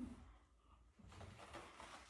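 Near silence: room tone, with a faint brief low sound at the very start and a faint rustling noise from about a second in.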